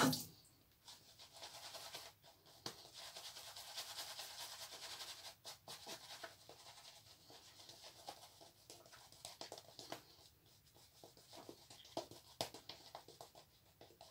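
Shaving brush swirled over a lathered face: a soft bristly scratching and swishing of wet soap lather, fuller for the first few seconds, then fainter with scattered small scratches.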